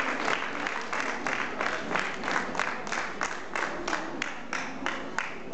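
Audience applause that settles into rhythmic clapping in unison, about four claps a second.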